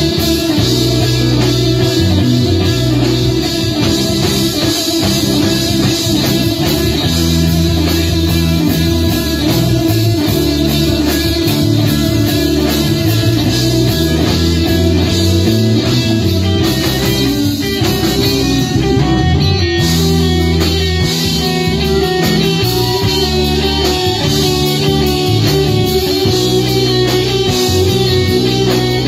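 Live blues band playing an instrumental passage: two electric guitars playing together over bass guitar and a drum kit.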